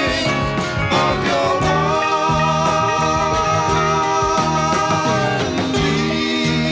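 Instrumental passage of a late-1960s psychedelic rock band recording, in a mono mix: guitar over bass and drums with a steady beat, and long held notes through the middle.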